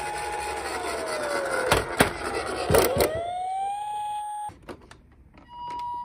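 Toy ambulance's electronic siren wailing: the tone holds, slides down in pitch, then rises again, with a few sharp knocks in the middle. It cuts off, and near the end a toy ambulance starts the two-tone Japanese "pee-po" ambulance siren.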